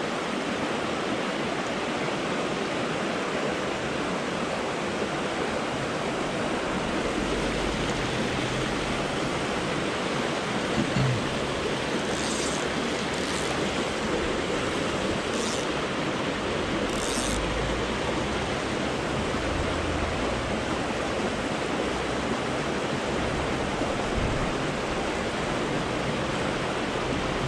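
Fast creek water rushing steadily over a rocky riffle, with a few short high hisses about halfway through.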